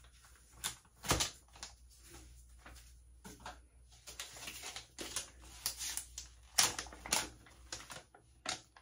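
Resealable packet of facial pads being opened and handled: irregular plastic crinkles and clicks, the sharpest about a second in and again around six and a half to seven seconds.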